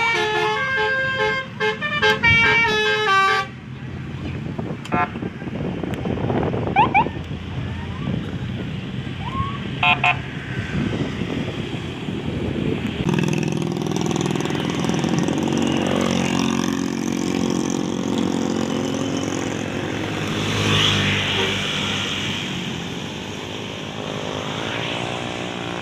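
Telolet (basuri) multi-tone bus horn playing a quick stepped melody, cutting off about three seconds in. Road traffic follows, with a couple of short high toots, and from about halfway a heavy vehicle's engine passing close.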